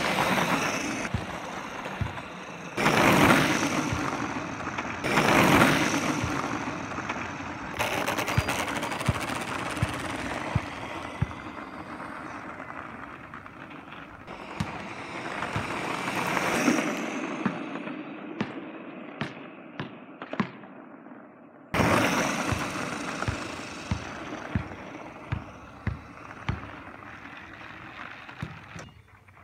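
Liftboard dual-motor electric skateboard rolling over rough asphalt. Its wheels give a gritty rushing noise with many sharp clicks, swelling and fading several times as the board passes close, breaking off and starting again abruptly about 22 seconds in.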